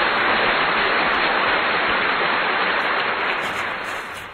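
A loud, steady hiss like static, which cuts off sharply near the end.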